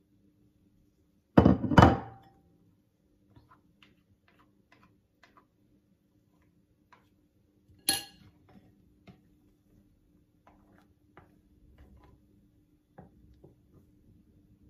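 Kitchenware sounds while soufflé-pancake batter is made: two heavy knocks of the ceramic bowl and utensil on the glass mixing bowl about a second and a half in, then a sharp ringing clink near the middle. Light scattered taps and scrapes of a utensil folding yolk batter into meringue in the glass bowl follow.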